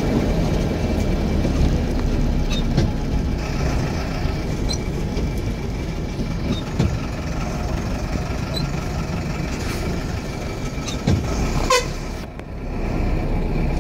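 Steady engine and road rumble heard from inside a vehicle moving slowly through traffic, with a short horn toot near the end.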